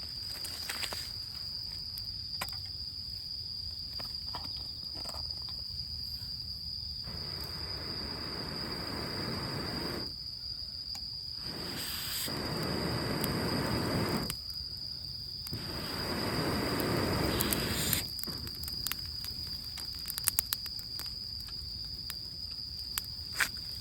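Insects chirring in a steady, high-pitched, unbroken trill. Three long stretches of rushing noise of a few seconds each come through the middle, and a few sharp crackles follow near the end.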